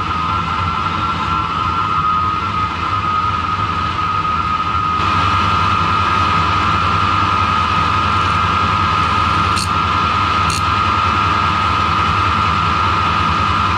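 Harrison metal lathe running with a steady high whine and a low hum from its headstock. From about five seconds in a harsher hiss joins as a flat file is held against the spinning steel bar, with two light clicks near ten seconds in.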